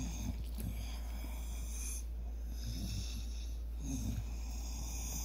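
Noisy, snoring-like breathing with snuffles, breath after breath close to the microphone, over a steady low hum.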